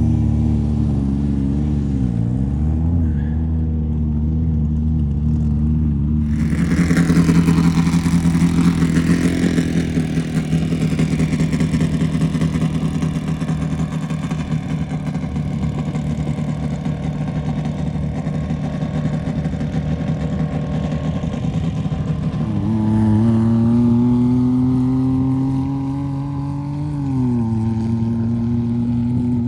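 Off-road race vehicle engines running. About six seconds in, a louder engine comes in close and holds a steady pitch. From about 22 seconds the engine note rises in steps, then drops shortly before the end.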